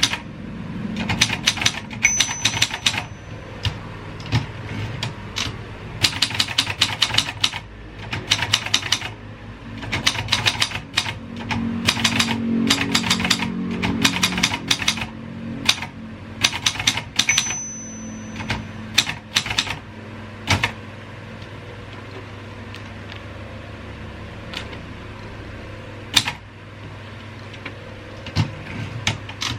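Royal 202 manual typewriter being typed on: quick runs of key strikes for much of the time, thinning to occasional single strikes over the last third. A short high ring sounds twice.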